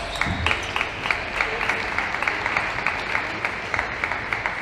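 Arena crowd with steady background noise and rhythmic clapping, about four claps a second, along with the occasional click of the table tennis ball off bat and table.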